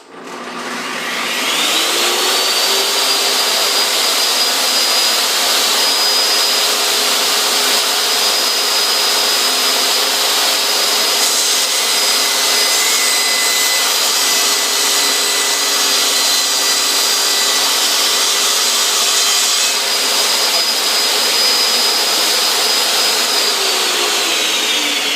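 Table saw switched on, its blade whine rising as it spins up over the first couple of seconds, then running steadily at full speed. Roughly midway an added hissing noise for about eight seconds fits the blade cutting through wood molding. Near the end the saw is switched off and its whine falls as the blade coasts down.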